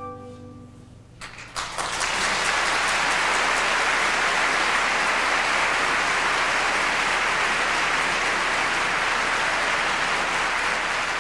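Audience applauding. The orchestra's last held chord dies away, a few single claps break in about a second in, and the clapping quickly fills into a steady, dense applause.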